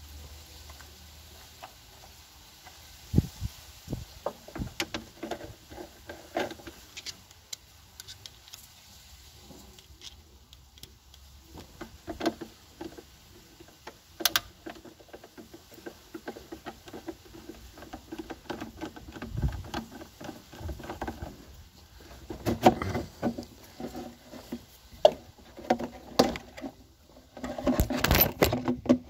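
Irregular clicks, taps and rustling from hands working in a car's engine bay, with a denser cluster of knocks and handling noise near the end.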